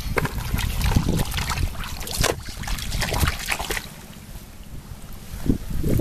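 Shallow muddy water splashing and sloshing as feet wade and hands grope through it, in irregular bursts that ease off for a moment after about four seconds, with wind rumbling on the microphone.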